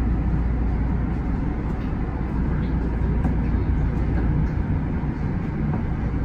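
Tama Toshi Monorail train running along its concrete track beam, heard from inside the front car: a steady low rumble from its rubber tyres and drive.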